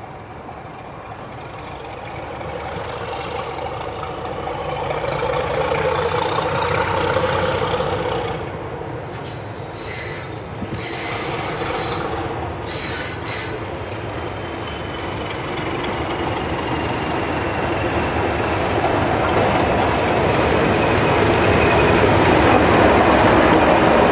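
Class 31 diesel locomotive, with an English Electric V12 engine, approaching and running past with its coaches, growing steadily louder as it nears. A few sharp clicks come around ten to thirteen seconds in, and near the end a faint falling squeal rides over the engine and wheels.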